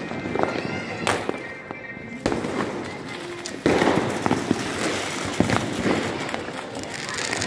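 Many Diwali fireworks and firecrackers going off at once: a dense crackle broken by sharp bangs. It gets louder with a sudden jump about halfway through.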